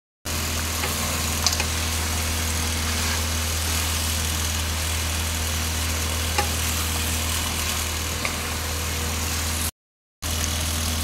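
Goat meat and liver frying in oil in a pan, an even hiss, over a steady low hum; a few light taps of a wooden spatula. The sound cuts out for half a second near the end.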